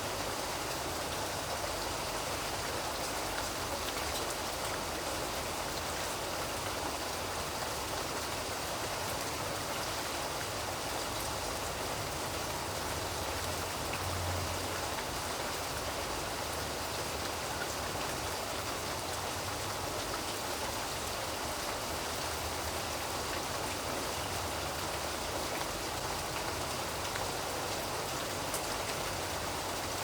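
Steady rain falling, an even, unbroken wash of drops at a constant level.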